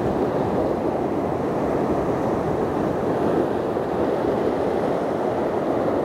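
Sea surf breaking and washing over shoreline rocks: a steady rush of foaming water with no let-up.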